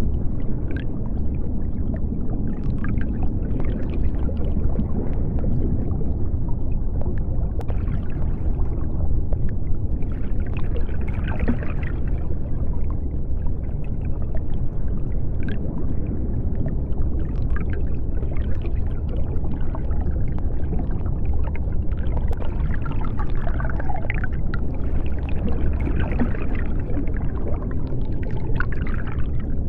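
Underwater ambience: a steady deep rumble with scattered bubbling and small clicks.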